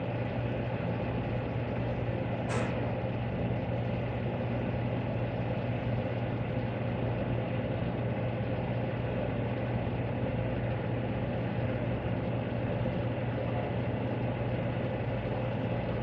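A steady low electrical hum over an even hiss, with one short click about two and a half seconds in.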